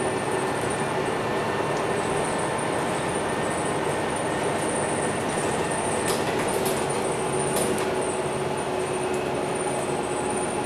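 Cabin noise inside a MAN NL323F A22 single-deck bus moving slowly: a steady engine and drivetrain hum with a thin high whine running through it. A few sharp clicks from the interior fittings come about six to eight seconds in.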